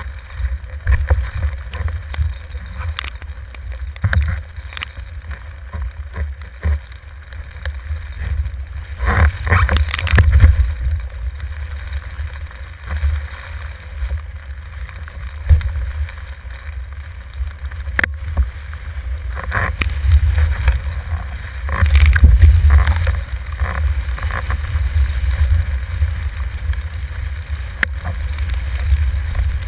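Windsurfing: wind rumbling on a boom-mounted camera's microphone, with uneven splashes of chop against the board, heaviest about nine to ten seconds in and again around twenty-two seconds in. A single sharp click comes about eighteen seconds in.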